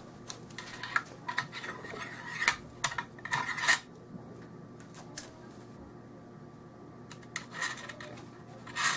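Metal clicking and rattling from a Norinco SKS rifle as its steel cleaning rod is slid back into its channel under the barrel. A run of sharp clicks over the first four seconds, a pause, then a few more near the end.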